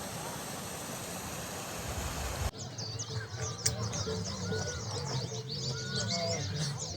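A steady rush of running water, then after a sudden cut about two and a half seconds in, many small birds chirping in quick, high, downward-sweeping notes.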